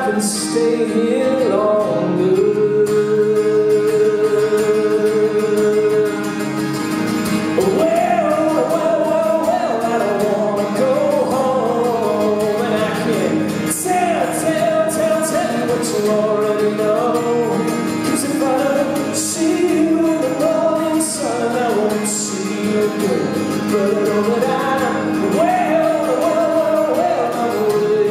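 Live male vocals with acoustic guitar: a man sings a slow melody while playing the guitar, holding one long note about two seconds in.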